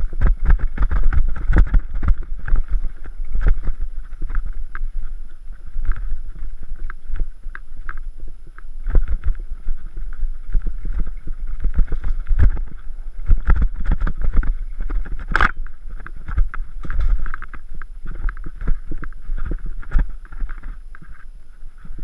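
Mountain bike ridden over a bumpy dirt singletrack: a constant clatter of knocks and rattles from the bike over roots and bumps, with wind rumbling on the microphone. One sharper knock stands out a little past the middle.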